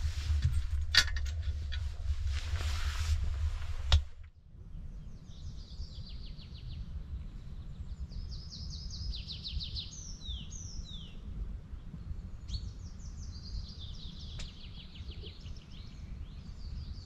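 For about four seconds a loud hiss with a low rumble and a few sharp clicks, which cuts off abruptly. Then a songbird sings phrases of rapidly repeated high notes, some ending in quick falling strokes, over a steady low rumble.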